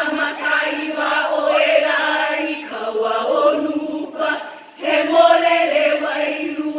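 Group of women chanting a Hawaiian hula chant in unison, with a few dull beats from ipu heke double-gourd drums. The chanting dips briefly about two-thirds of the way through.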